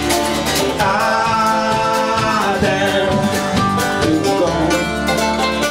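Live acoustic folk band playing, with banjo and mandolin picking at the front.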